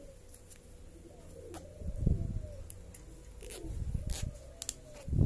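A dove cooing, low calls repeated about every second and a half.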